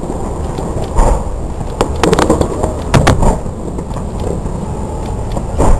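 Fireworks going off in a string of sharp bangs: one about a second in, a quick cluster around two seconds, two more near three seconds, and a loud one near the end, over a continuous low rumble.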